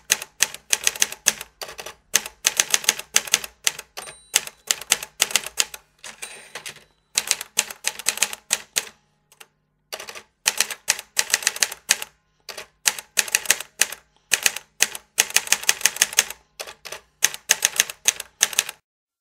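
Typewriter keys striking in quick runs of strokes, with short pauses between the runs.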